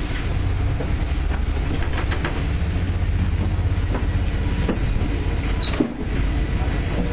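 JR Oga Line train running on the rails: a steady low rumble with scattered short clicks from the wheels, and one sharper knock near the end.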